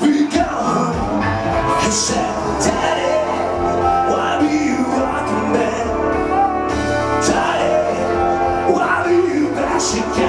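A male singer performing a song live over a karaoke backing track with drums.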